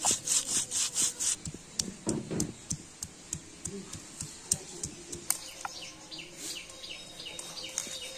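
Stone roller rubbed back and forth over a flat grinding stone (shil-nora), crushing whole spice seeds: quick rasping strokes that stop about a second and a half in, followed by scattered light taps of stone on stone.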